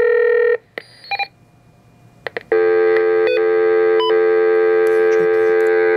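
Tempo TM900 telephone test set sounding a loud, steady telephone-line tone through its speaker. The tone stops about half a second in, and a couple of short beeps and two clicks follow. About two and a half seconds in, the steady tone starts again and holds.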